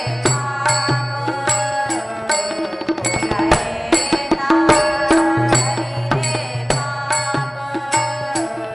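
Marathi devotional bhajan: women's voices singing over a harmonium's held chords, with tabla keeping a steady beat.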